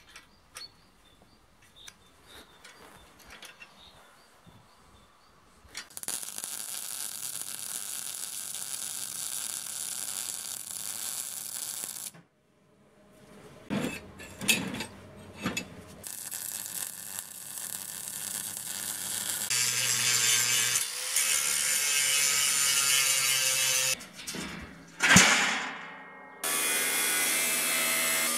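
A run of metalworking sounds. First comes faint clicking of a small wrench on a grease fitting, then short bursts of MIG welding crackle a little past the middle. Near the end an angle grinder runs and cuts through thin sheet steel.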